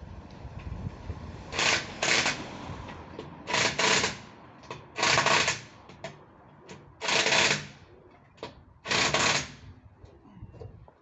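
Impact wrench hammering on wheel lug nuts in short bursts: five goes about two seconds apart, the first two each a quick double burst.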